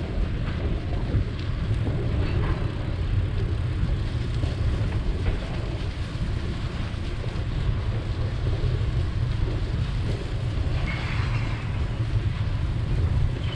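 Steady low rumble of wind buffeting the microphone and bicycle tyres rolling over a concrete path, with faint light clicks.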